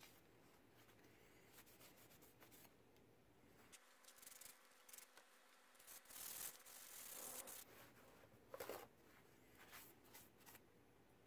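Faint rubbing of a paper shop towel wiping a freshly etched Damascus steel knife blade, in short uneven strokes. The longest and loudest stroke comes a little past the middle.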